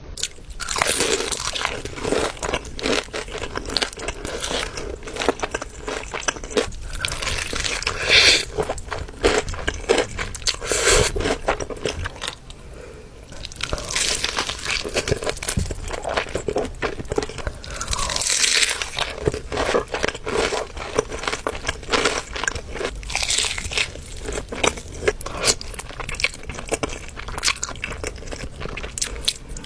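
Mukbang-style eating sounds: crunchy food being bitten and chewed close to the microphone, a dense run of crisp crunches that eases off briefly a little before the middle.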